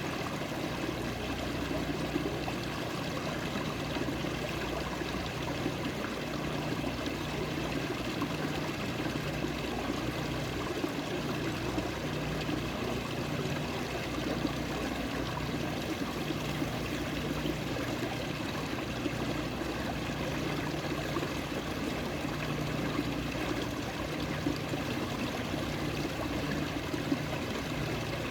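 Running water, flowing steadily without a break.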